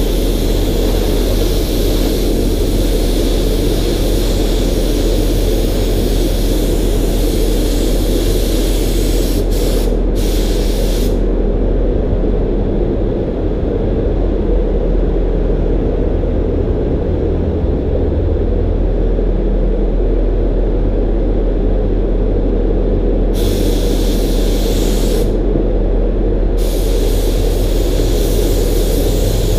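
DeVilbiss gravity-feed spray gun hissing as it sprays primer onto car body panels: one long spell of about ten seconds, a long pause, then two shorter spells near the end. Under it a loud, steady low rumble.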